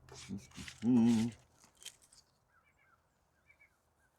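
A short, wavering vocal sound about a second in, among light clicks of handling, then faint bird chirps repeating over the second half.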